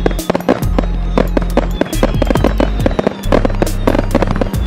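Aerial fireworks bursting in quick succession, a dense run of bangs and crackles, mixed with music that has a steady low bass line.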